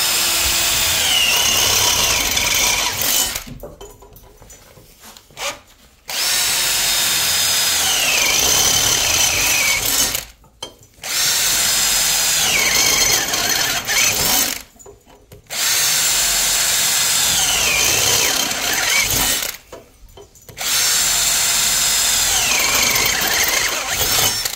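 Cordless drill with a 10 mm Ruko Flowstep cobalt step bit drilling through a square steel tube five times, each hole taking about three to four seconds. Each run has a high whine that falls in pitch as the bit cuts through, and there are short pauses between holes.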